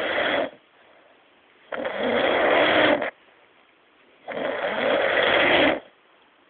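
A man snoring in a slow, regular rhythm: the tail of one snore, then two full snores, each about a second and a half long, with quiet gaps of just over a second between them. The rasping snores sound like the TARDIS materialisation noise.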